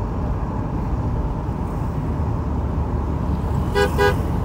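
Steady low rumble of road travel heard from a moving vehicle, with a vehicle horn giving two short beeps near the end.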